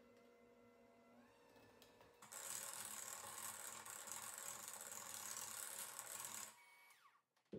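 KitchenAid electric hand mixer running, a steady hum that rises in pitch about a second in, then much louder and rougher from about two seconds in as the beaters blend the almond-flour quick-bread batter. It winds down near the end, followed by a short knock.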